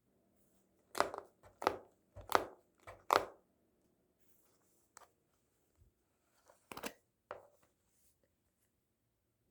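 A series of sharp knocks or taps on a hard surface: four about 0.7 s apart starting a second in, then two more a little before seven seconds.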